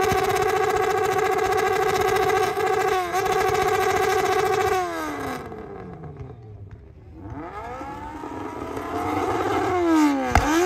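Motorcycle engine held at steady high revs with one brief dip. About five seconds in the revs sag and fall away until it nearly dies, then climb back and rise to a sharp throttle blip near the end. Thick smoke pours off the bike as it is thrashed: an engine being run to destruction.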